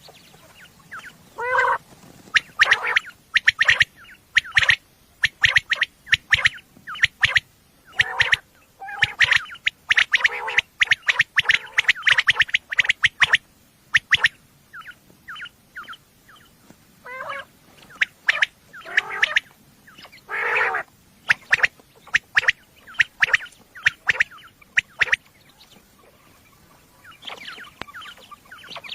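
Quail calling: quick runs of short, sharp, high notes in bursts, with a few lower, longer notes mixed in, as played to lure quail.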